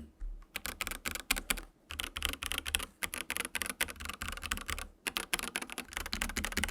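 Fast typing on a stock Dareu A87 hot-swap mechanical keyboard: a rapid, uneven run of keystrokes with two short pauses. There is an audible hollow echo, which the owner puts down to the gap between the PCB and the case.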